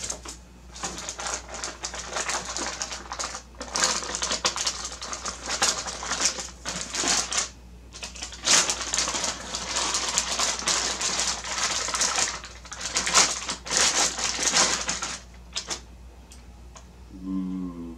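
Plastic anti-static bag and packaging crinkling as a graphics card is lifted out and unwrapped: dense, irregular crackling that stops about fifteen seconds in.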